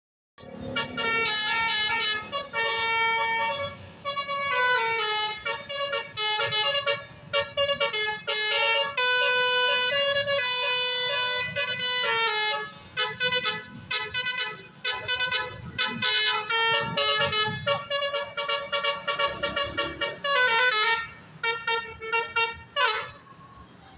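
A bus's DAV musical air horn (telolet) playing a fast melody of loud horn notes, several pitches sounding together, with short breaks between phrases. It ends with two falling pitch glides.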